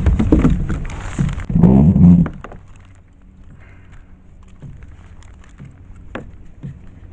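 Thumps and handling knocks on a kayak, loudest in the first two seconds, then quieter with a few sharp clicks, the clearest about six seconds in.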